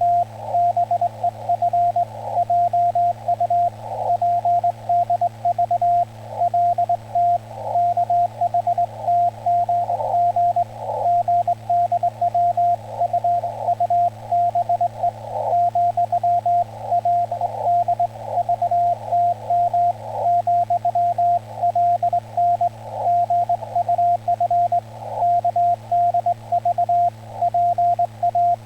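Morse code on a ham radio: a single steady beep keyed on and off in dots and dashes, sending Korean Hangul Morse, with a steady low hum underneath.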